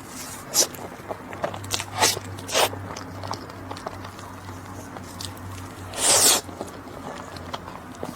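Close-miked eating sounds: scattered crisp bites and wet mouth clicks. Near the end comes one longer, louder crisp crunch.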